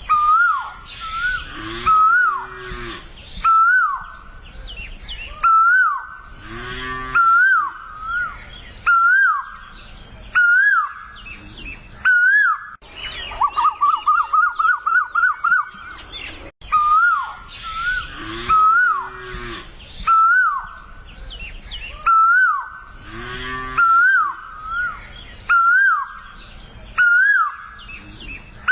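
Birds singing: one bird repeats a loud whistled call that swoops up and down, about once every second and a half to two seconds, with a quick run of rising notes in the middle and a few low pitched calls now and then. A steady high hiss runs underneath, and the whole sequence repeats about halfway through.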